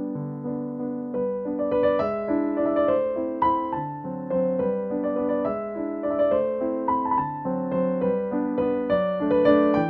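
Background piano music: a melody of single struck notes over held lower chords.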